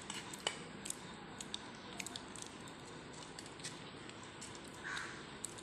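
Faint, scattered small ticks and soft rustles of a baked wheat-flour cupcake and its paper liner being broken apart by hand, with a slightly louder rustle near the end.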